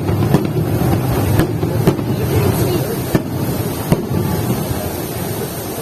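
Fireworks bursting: about five sharp bangs, spaced irregularly through the first four seconds, over a steady background noise.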